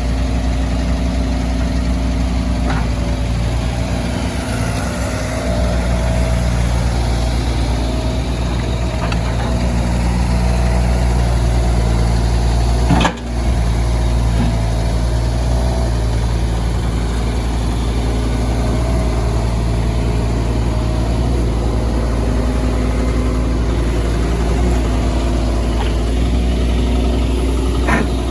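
Jining W35 mini excavator's diesel engine running at a steady speed, with a faint whine that wavers slightly in pitch. About halfway through there is a single brief knock or break in the sound.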